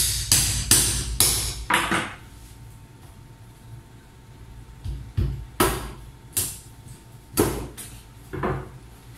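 Heavy kitchen knife chopping through a fish onto a plastic cutting board: sharp knocks in three runs, about five in the first two seconds, then two runs of about three near the middle and the end.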